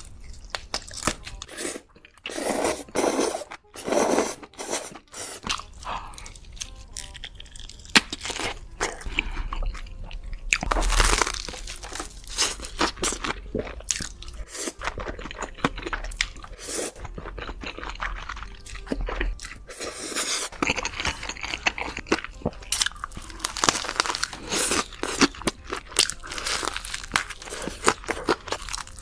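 A person eating close to the microphone, in mukbang style: repeated crunching bites and chewing, irregular and ongoing throughout.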